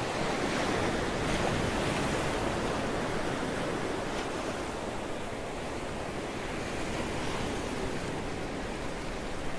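Steady rush of ocean surf, with wind.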